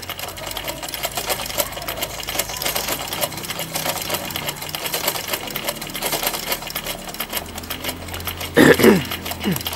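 Domestic sewing machine stitching a test seam at a steady pace, a rapid run of needle and feed clicks, after its thread-tension discs were sanded flat. Near the end a brief, loud sound falls in pitch.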